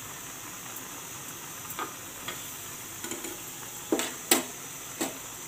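A watery fish curry simmering in a pan with a steady bubbling hiss while a metal spoon stirs it, knocking against the pan several times from about two seconds in, loudest around four seconds in.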